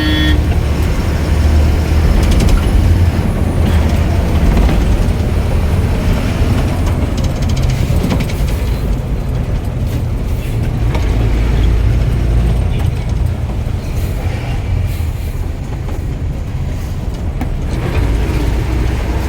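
Ashok Leyland bus's diesel engine running, a steady sound heavy in the low end.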